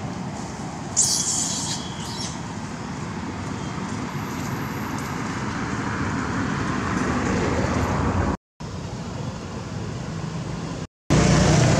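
Steady outdoor background noise with a traffic-like rumble, broken by two brief dropouts to silence near the end. A short high-pitched sound comes about a second in.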